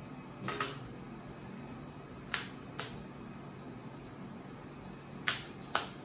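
Sharp clicks and snaps of sleeved trading cards being handled and set down on a playmat, about five in all, the two loudest close together near the end.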